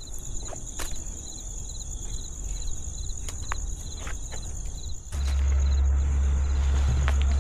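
Crickets and other night insects chirping steadily, with scattered footsteps on dry leaves and debris. About five seconds in, a steady low rumble starts and becomes the loudest sound.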